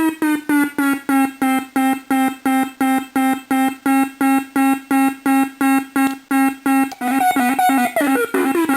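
Homemade oscillator drone machine sounding a buzzy electronic tone chopped into even beeps about four times a second, a slow oscillator keying an audio oscillator. About seven seconds in, the pulses quicken and a higher tone slides down in pitch.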